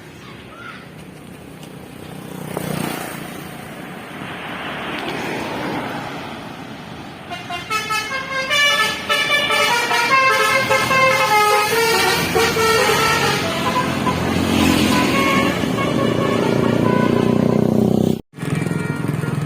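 Indonesian bus telolet horn of the Basuri type playing a fast melody of short stepped tooting notes, starting about seven seconds in after passing traffic noise. The notes give way to a steady loud vehicle sound, broken by a brief dropout near the end.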